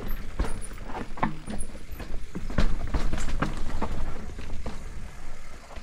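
Mountain bike descending a rock garden: a quick, irregular run of knocks and rattles as the tyres strike rocks and the bike clatters, over a low rumble, loudest in the middle.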